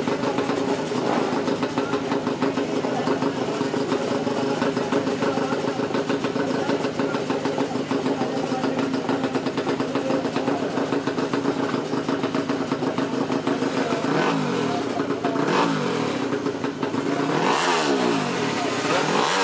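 Drag-racing motorcycle engine running steadily at a fast idle, then blipped several times from a little past two-thirds in, the revs sweeping up and dropping back each time.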